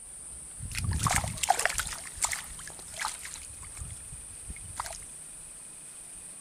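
A float rig cast into swamp water: a cluster of splashing and handling knocks in the first couple of seconds, a few smaller ticks after, and a sharp click near the end. A steady high-pitched insect drone runs underneath.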